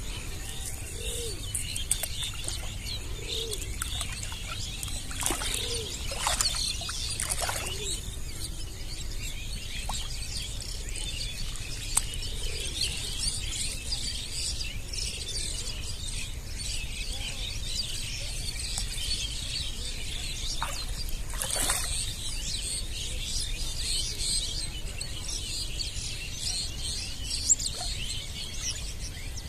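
Birds chirping and calling, with a dove cooing several times in the first few seconds.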